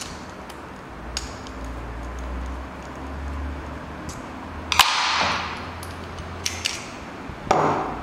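Small metallic clicks and clinks as a hex key works the clamp screw of a steel Tibbe key jaw and the jaw and key are handled. Two louder clacks, each followed by a brief rustle, come about five seconds in and near the end.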